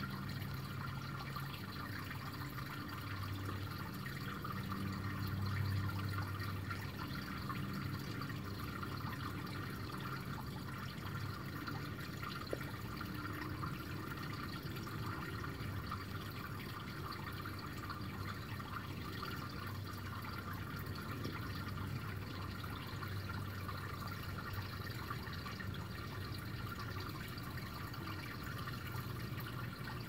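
Shallow brook water trickling and splashing over stones in a small riffle, a steady unbroken flow.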